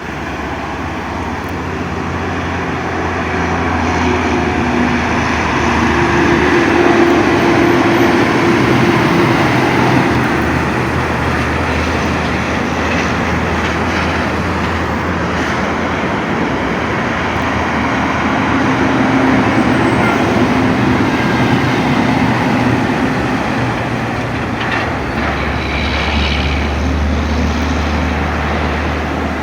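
Heavy truck engine running loudly, its exhaust note swelling and easing twice.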